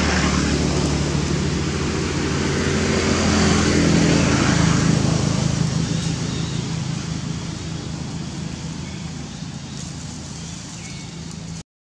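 A motor vehicle's engine running steadily at a constant pitch, with no rise or fall in pitch. It grows louder to about four seconds in, then slowly fades, and cuts out abruptly near the end.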